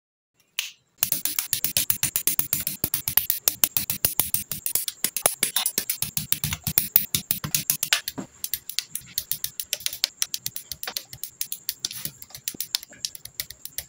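Rapid, irregular clicking and snapping of plastic model-kit parts being handled and cut from the sprue with sprue nippers, played back sped up. It starts suddenly about a second in.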